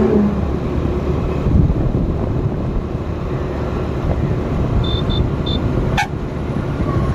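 Steady low road and engine rumble of a vehicle driving along a highway, with three short high-pitched beeps about five seconds in and a sharp click about a second later.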